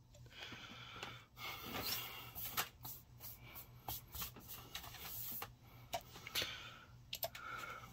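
Quiet rustling with scattered sharp clicks close to the microphone.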